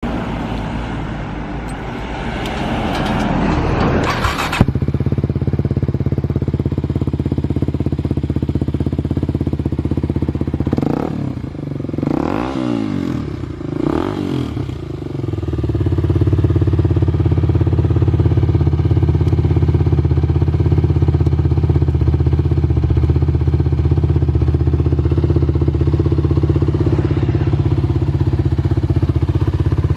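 Suzuki 250SB motard's single-cylinder four-stroke engine running through an aftermarket titanium silencer. It is rougher and noisier for the first few seconds, then settles into a steady idle from about four seconds in. It is blipped up and down a few times near the middle, then idles steadily again.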